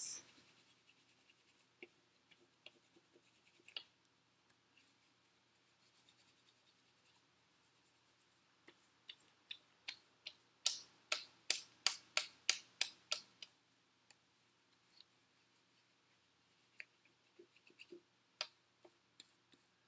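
Side of a crayon rubbed back and forth over paper laid on a leaf: faint scratchy strokes, with a run of quicker, louder strokes at about three a second in the middle.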